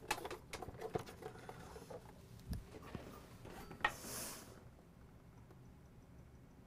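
Faint handling sounds as a PTZ camera and its cables are set down on a desk: scattered light clicks and knocks, a soft thump about two and a half seconds in, and a sharp click near four seconds followed by a short hiss.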